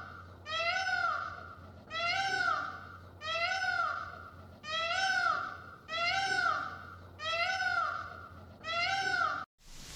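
A cat meowing over and over, about ten short rising-and-falling meows at roughly one a second.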